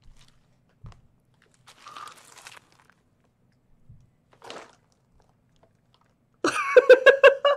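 Soft crinkling and rustling of a thin paper gift bag being handled and opened. Near the end, a woman breaks into a loud burst of excited laughter.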